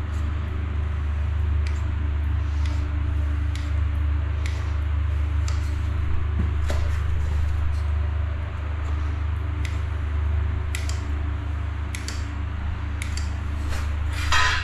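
Caulking gun being squeezed over and over as a bead of silicone is run along a floor-to-wall joint, with a sharp click every second or so, over a steady low hum.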